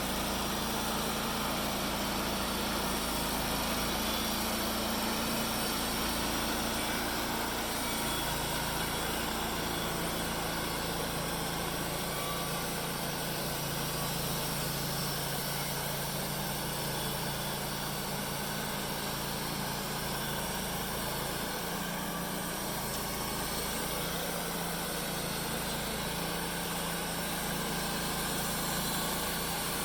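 Engine running steadily at a constant speed, its low hum shifting slightly now and then.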